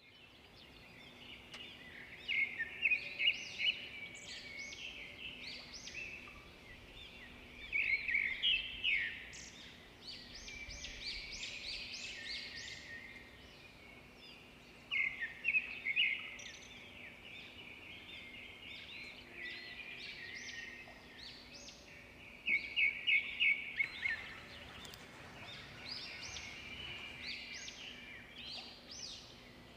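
Birds singing in the open, in repeated bursts of rapid high chirps about every six or seven seconds, with quieter calls in between.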